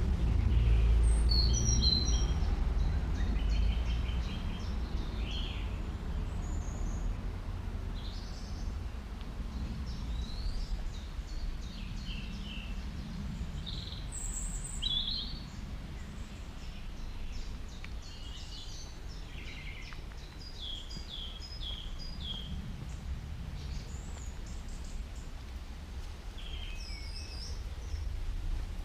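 Songbirds chirping and singing, many short calls and trills overlapping, over a steady low rumble that is loudest in the first few seconds.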